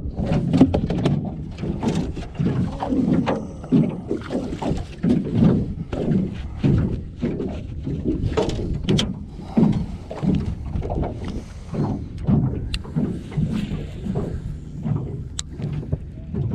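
Small waves slapping and sloshing against the hull of a small fishing boat, a low surge about once a second, with a few sharp clicks and knocks from gear being handled.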